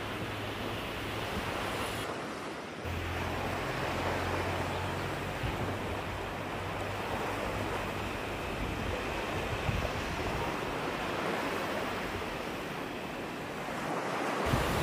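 Steady wash of sea surf on a sandy beach below, mixed with wind on the microphone that grows a little louder near the end.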